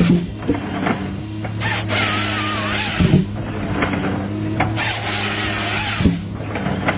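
Wood-processing machine running: a steady low engine hum under a loud mechanical rattle that comes and goes in cycles of a few seconds, with sharp knocks about every three seconds.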